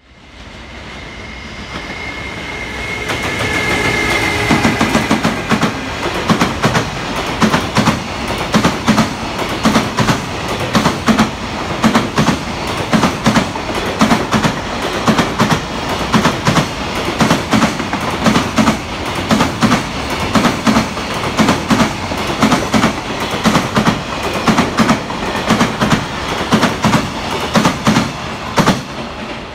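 Freight train of Koki 104 container wagons running past, steel wheels clattering over the rail joints in a steady clickety-clack, the knocks coming in pairs about once a second. A high thin whine sounds over the first few seconds as the noise swells.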